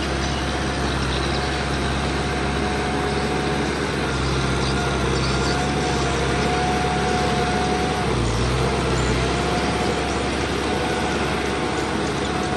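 Kubota M6040 tractor's four-cylinder diesel engine running steadily, with a thin whine above it that wavers in pitch.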